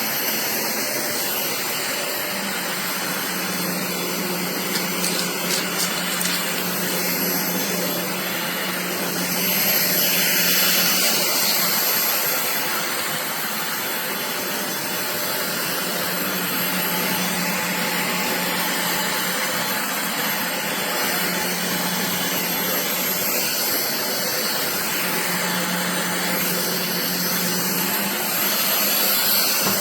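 Cordless stick vacuum cleaner running steadily with a constant motor whine, getting a little louder for a couple of seconds about a third of the way in and again near the end.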